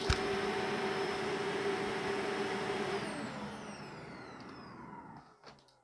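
Corded vacuum cleaner running steadily with a sharp click just after the start; about three seconds in it is switched off and the motor winds down with a falling whine, fading to near quiet by the end.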